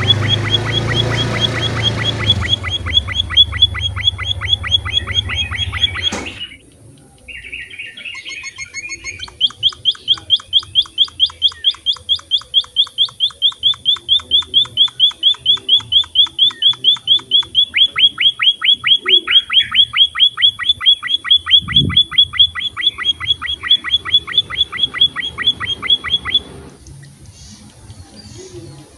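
Munias (emprit) chirping in a fast, even string of short high chirps, several a second, with a low rumble under the first couple of seconds. The chirping breaks off briefly about six seconds in, then resumes in a long run that stops a couple of seconds before the end, leaving only fainter calls.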